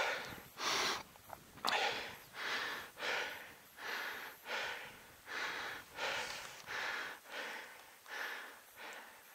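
A man breathing hard, in and out about twice a second, out of breath from stalking crouched across a field.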